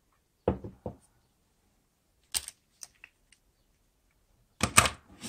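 Hard plastic clicks and knocks as an electric shaver and its clip-on parts are handled and fitted together: a couple of dull knocks, a sharp click, then a quick run of clicks near the end.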